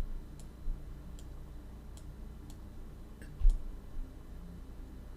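Faint light clicks, roughly one a second, with a few low thumps over a steady low hum.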